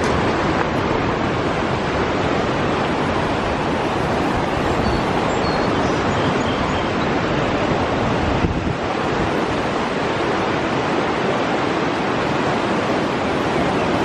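A fast-flowing river rushing over rough water, a steady loud wash of noise.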